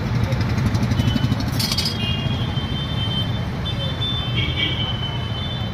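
Steady low rumble of street traffic around a roadside food stall, with a steel spatula scraping and clinking on a large iron tawa in the first two seconds as it presses a frying paratha.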